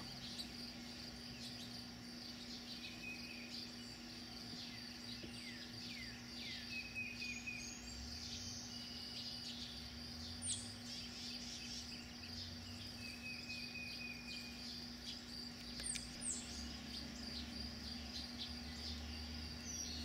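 A steady, high insect chorus over a low steady hum, with scattered short chirps and calls from small songbirds, including a few sharp, high falling chirps about halfway through and again later.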